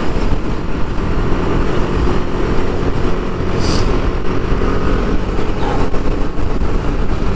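Motorcycle running at highway speed, its engine drone mixed with a steady rush of wind over the helmet-mounted microphone.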